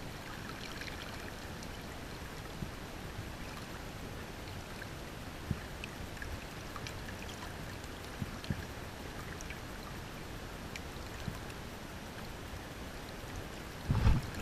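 River water flowing and lapping close to the microphone, a steady rushing hiss with a few faint small ticks and drips. Near the end, wind starts buffeting the microphone with low rumbling gusts.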